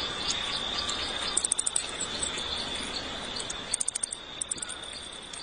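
Insects calling: a steady high drone with three short bursts of rapid, very high chirping pulses.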